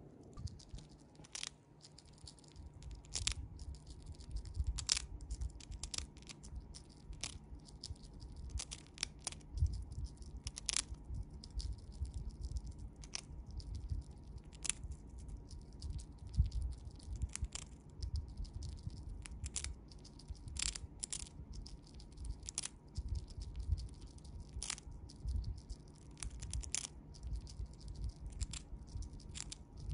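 Siberian chipmunk crunching a dried kabocha pumpkin chip: sharp, crisp cracks come irregularly, about one or two a second, between quieter chewing.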